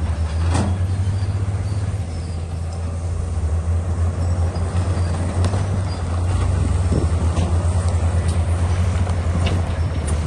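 Komatsu D68E bulldozer's diesel engine running with a deep, steady rumble, with a few short knocks. It gets louder and pulses from about two-thirds of the way through.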